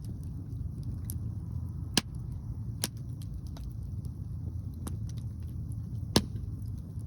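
Wood fire crackling, with scattered sharp pops, the loudest about two seconds in and near the end, over a steady low rumble of strong wind on the microphone.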